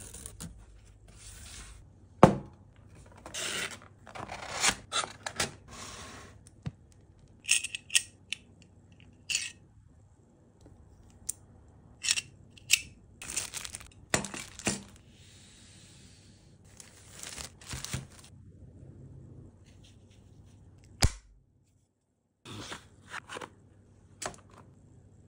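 Unboxing: packaging torn and rustled, cardboard and clear plastic bags handled in short bursts, with a few sharp clicks and knocks, the loudest about two seconds in and about 21 seconds in.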